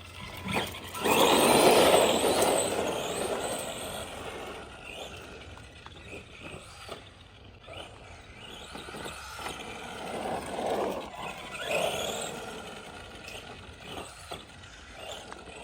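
Arma Granite Boost RC monster truck driving, its electric motor whining and tyres running over the ground, loudest for a couple of seconds near the start as it passes close, then swelling and fading as it drives around.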